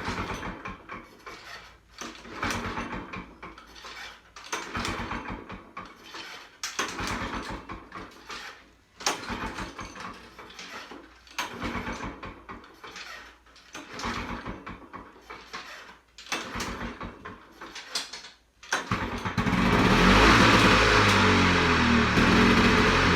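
Old two-stroke Lawn Boy mower engine being pull-started on its first attempt after sitting for over two decades. The recoil starter is pulled about eight times, each pull turning the engine over briefly. Near the end the engine catches and keeps running steadily and loudly.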